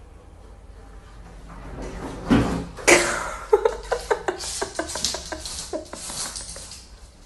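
A kitchen cabinet's pull-out drawer being pawed open by a cat, with two loud knocks about two and three seconds in, then a run of lighter knocks and clatter from the drawer and the pan inside it.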